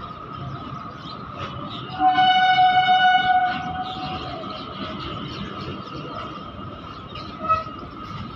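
Loaded BOXN open goods wagons rolling past with a steady rumble of wheels on rail. About two seconds in, a train horn sounds for about a second and a half, the loudest thing here, and a short toot follows near the end.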